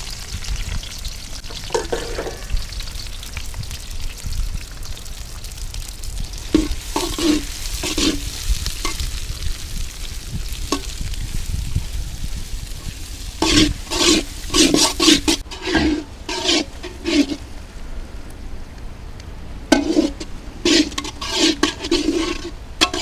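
Sliced onions frying in hot oil in a large iron kadai, sizzling steadily, while a metal ladle scrapes and stirs them in short bursts, busiest in the second half.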